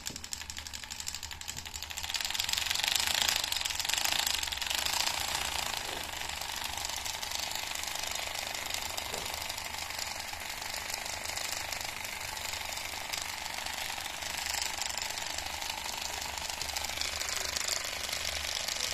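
Small DC motor running a homemade mini V-twin engine model through rubber belts, its plastic pistons and crank making a fast, even clatter. The sound steps up and gets louder about two seconds in.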